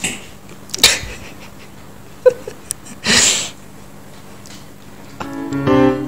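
A grey cat sneezing twice, short sharp bursts about a second in and again about three seconds in. Piano music starts near the end.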